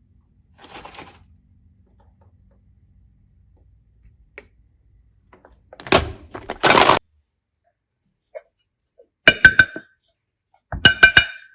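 Handling noises: a brief faint rustle, a louder crunching about six seconds in, then two quick runs of sharp, ringing clicks near the end.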